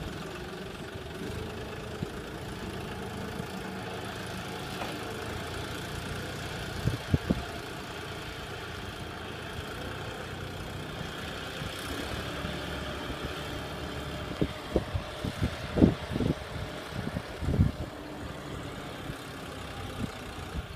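Farm tractor's diesel engine running steadily as it ploughs through deep floodwater. Several short, loud low thumps break in about seven seconds in and again in a cluster in the last third.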